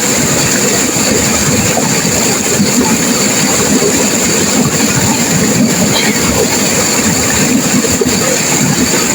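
Turbulent river water rushing and crashing over rocks in a loud, steady, unbroken wash of noise.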